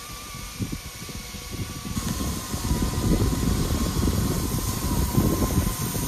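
Several battery-powered Eachine E250 RC helicopters flying, their electric motors giving a steady, slightly wavering whine over an uneven low rotor rumble. The sound grows louder about two seconds in.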